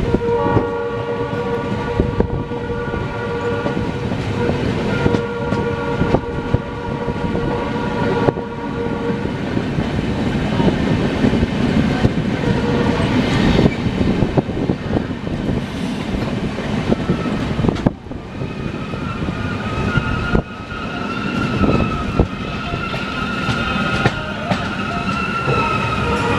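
Passenger train running, with steady wheel-and-rail rumble and clatter. A long, steady multi-tone horn sounds over roughly the first nine seconds, and a wavering high tone returns in the last seven seconds.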